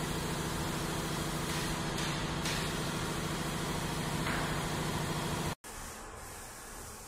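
CNC plastic sheet welding and rolling machine running with a steady mechanical hum while it rolls a plastic sheet into a cylinder. The hum cuts off sharply about five and a half seconds in, giving way to a quieter steady noise.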